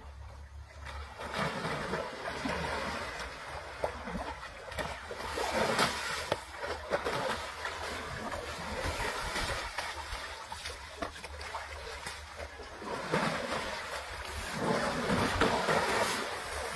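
An Asian elephant wading through a muddy pond, water sloshing and splashing in irregular surges, loudest about five seconds in and again near the end.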